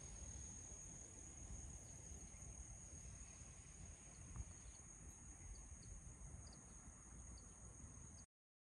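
Faint, steady high-pitched shrilling of insects in lakeside grass, over a low outdoor hiss, with a few tiny short chirps. The sound cuts off abruptly near the end.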